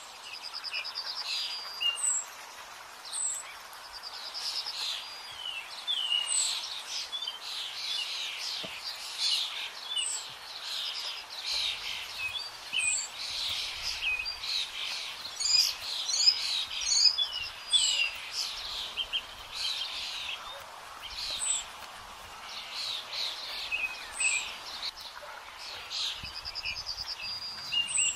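Several wild birds singing in woodland, with overlapping whistled songs, trills and chirps. A short high call recurs every second or two throughout.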